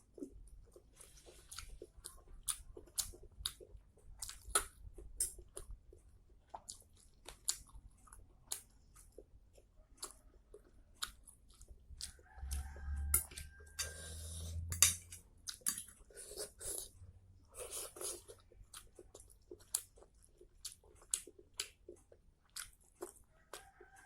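Close-miked chewing of saucy noodles: a steady run of wet mouth clicks and smacks. A short low rumble comes about halfway through.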